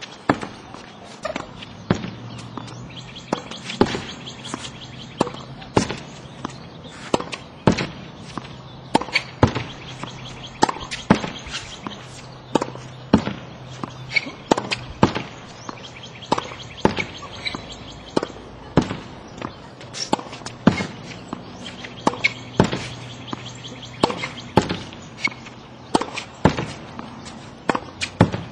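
Tennis ball being hit against a practice backboard: a steady run of sharp pops from racket on ball, ball on wall and bounces on the hard court, about two a second.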